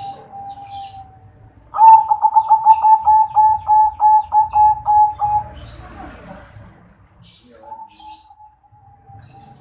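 Zebra dove (perkutut) cooing. The loudest part is a fast trilled coo of about fifteen quick pulses, starting about two seconds in and lasting some three and a half seconds. Softer drawn-out coos come before and after it, and faint high chirps from small birds sound in between.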